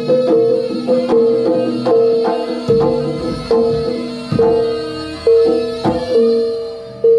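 Javanese gamelan music for a Jaranan dance: struck metal gong-chime and keyed instruments ring and decay on a repeating note, driven by kendang hand-drum strokes.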